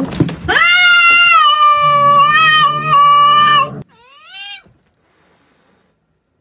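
Cats yowling in a standoff: one long, wavering yowl of about three seconds that cuts off suddenly, then a shorter cry that rises and falls.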